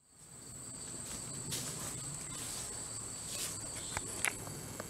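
Steady high drone of insects such as crickets in the woods, fading in at the start, with two soft rustles of footsteps on pine-straw leaf litter and a few sharp clicks near the end.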